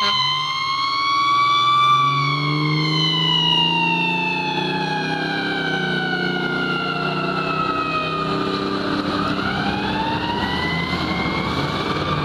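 Fire truck's Federal Q2B mechanical siren wailing. It climbs briefly, then coasts down steadily in pitch for several seconds before being spun back up about nine seconds in. The truck's engine runs underneath.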